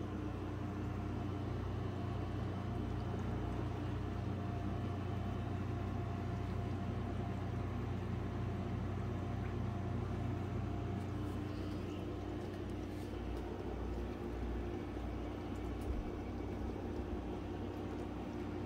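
Steady electric hum of running aquarium equipment, a filter and air pump motor, with a few faint clicks, the clearest near the end.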